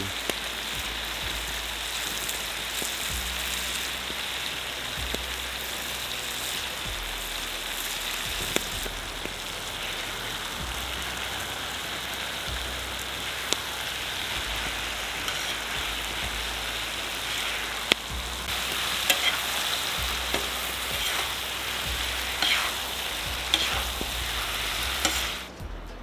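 Beef, potatoes, tomatoes and peppers sizzling steadily in a hot saj pan over a wood fire. A spatula clicks and scrapes against the pan now and then, more often in the second half, as herbs are stirred in. The sizzle cuts off suddenly near the end.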